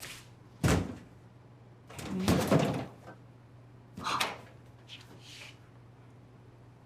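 A series of bangs and knocks: a sharp one just under a second in, a longer, louder one about two seconds in, another about four seconds in, then fainter taps.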